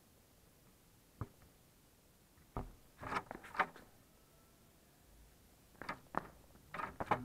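Scattered sharp clicks and light knocks: a single one about a second in, then two clusters around three and six seconds in. They come from a mouse moving about inside a wire-mesh cage trap.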